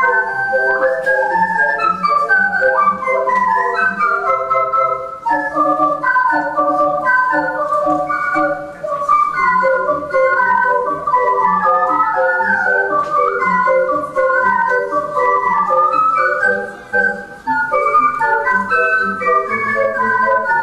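Ocarina ensemble playing a polka, several parts moving together in harmony over a regular pulsing low beat.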